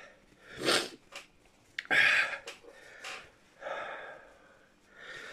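A man breathing hard in about five sharp, hissing breaths, the loudest about two seconds in: his mouth is burning from the heat of a Trinidad Moruga Scorpion chilli pod.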